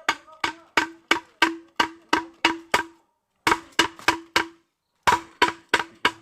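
Rapid, regular knocks, about three a second, each with a short ringing tone, broken by two brief pauses: near the middle and about two-thirds through.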